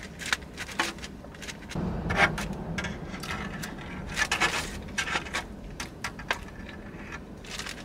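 Scraping and rustling handling noises with scattered short clicks, busiest from about two seconds in.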